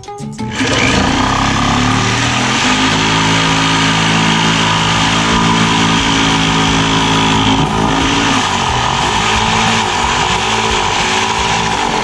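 Handheld electric power tool starting up and running steadily under load on metal, its motor pitch rising and falling repeatedly from about eight seconds in.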